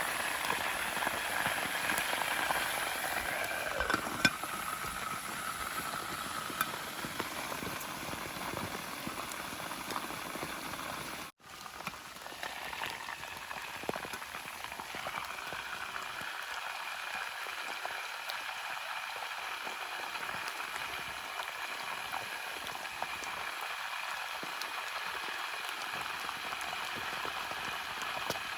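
Rain falling steadily and pattering on a tarp shelter, with a brief dropout about eleven seconds in.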